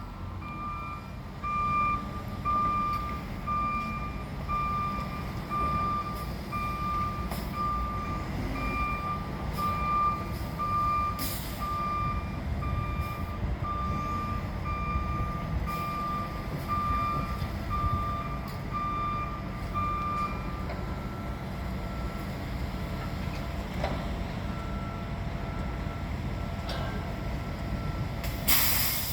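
Concrete mixer truck backing up, its reversing alarm beeping evenly about one and a half times a second over the steady running of its diesel engine. The beeping stops about two-thirds of the way through, a fainter, higher beep carries on, and a short loud hiss comes near the end.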